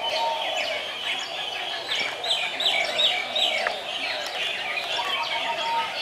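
A chorus of many small birds chirping, with quick, short, downward-sliding chirps overlapping one another. A run of louder chirps comes about two to three and a half seconds in.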